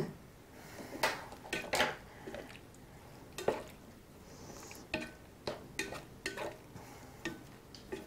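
Slotted plastic spatula stirring steak cubes and mushrooms in a frying pan with a little sauce, scraping and knocking against the pan in irregular strokes about every half second.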